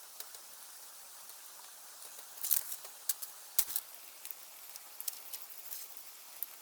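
Scattered light knocks and clicks from hand building work, over a faint steady hiss; the strongest knock comes about three and a half seconds in.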